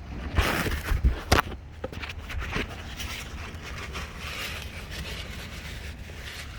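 Rubbing and scraping as the inside of a truck's front wheel hub is wiped clean, with two sharp knocks about a second in, then fainter scattered scrapes over a steady low background noise.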